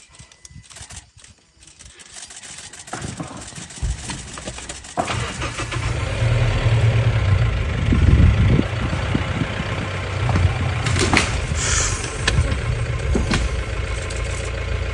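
A motor vehicle's engine starts about five seconds in and then idles steadily, with a few sharp knocks near the end.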